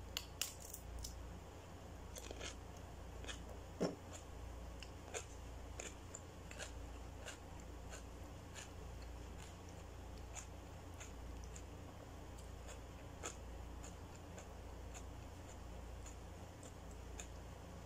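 Close-miked eating sounds: crisp crunching bites into a raw cucumber at the start, then chewing with a spoon working in a bowl of macaroni soup. These come as scattered short clicks and crunches at irregular intervals, the sharpest about four seconds in, over a low steady hum.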